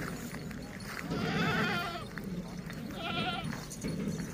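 Goats bleating: one long wavering bleat about a second in, then a shorter, trembling bleat about three seconds in.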